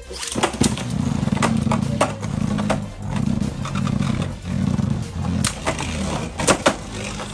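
Two Beyblade Burst spinning tops launched into a clear plastic stadium, whirring on the floor with a low pulsing hum and clacking sharply against each other again and again, the two loudest hits near the end.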